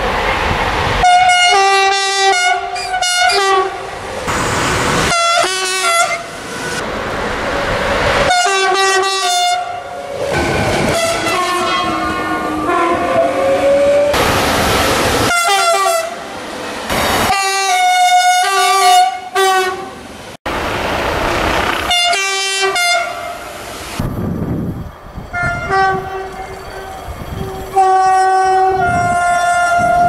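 Two-tone horns of French electric locomotives sounding series of short blasts that alternate between a low and a high note, with some longer held notes, over the noise of trains passing.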